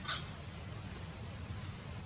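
A single short, high-pitched squeak from a young monkey, over a steady low background rumble.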